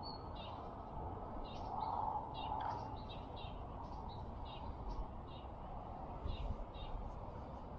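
Small birds chirping: a string of short, high chirps, roughly two a second, over steady background noise.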